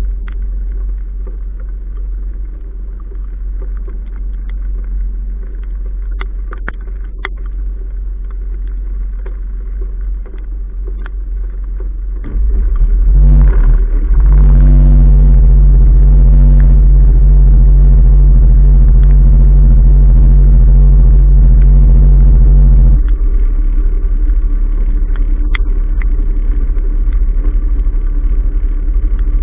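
Sailboat's inboard engine running slowly while motoring through the harbour, throttled up for about nine seconds around the middle, with a louder, steady drone, then eased back. A few light knocks are heard.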